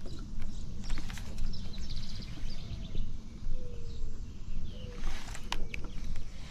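Outdoor ambience dominated by an uneven low rumble that swells and fades, typical of wind buffeting the microphone. Scattered light clicks and a few short high chirps sound through it.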